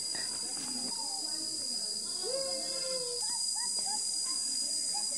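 Steady high-pitched drone of an insect chorus in the trees, with faint voices underneath.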